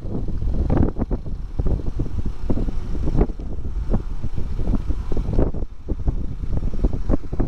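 Royal Enfield Himalayan single-cylinder motorcycle engine running at riding speed, with wind buffeting the microphone.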